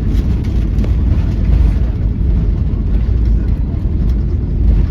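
Steady, loud rumble in the cabin of a Boeing 737-800 with CFM56-7B engines: engine and airflow noise.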